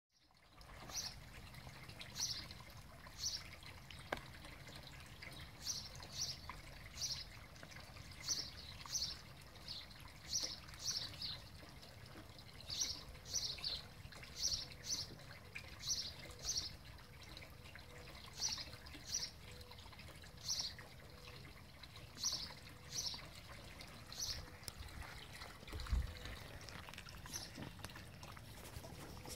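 Border Collie Husky cross chewing a Dentastix dental chew: short, sharp chomps about once a second, often in pairs, which stop shortly before the end. A single low thump comes near the end.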